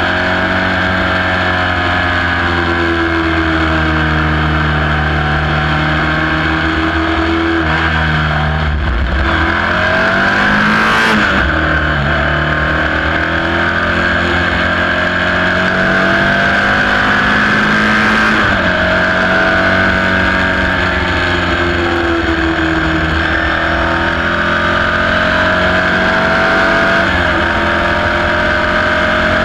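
Ford Pinto 2.0-litre four-cylinder engine of a Sports 2000 racing car heard from the cockpit, accelerating hard. It climbs in pitch and drops back at each upshift, with gear changes about eight, eleven, eighteen and twenty-seven seconds in.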